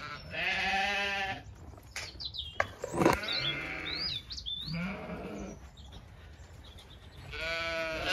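Zwartbles sheep bleating: three wavering bleats, at the start, about five seconds in and near the end. Between them, birds chirp in quick rising and falling notes, and there is one sharp knock about three seconds in.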